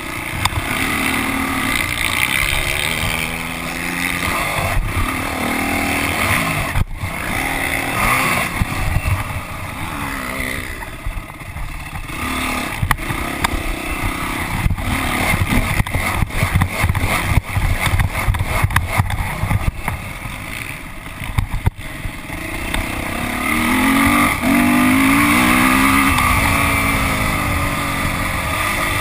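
Motocross dirt bike engine revving up and easing off over and over as the rider works the throttle and gears, heard from a camera mounted on the bike. Rushing wind, and sharp knocks as the bike crosses rough ground.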